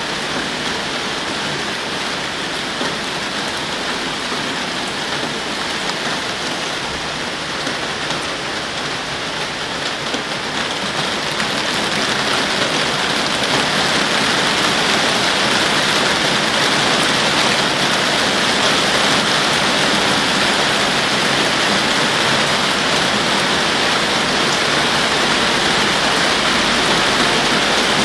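Heavy rain shower falling steadily, growing louder about eleven seconds in.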